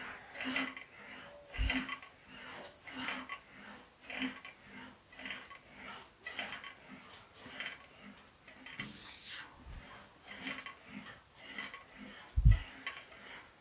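Sheet-metal fender panel being rolled back and forth through an English wheel to stretch and blend its curves, a light metallic rubbing and rattle about twice a second with each pass. A dull thump near the end.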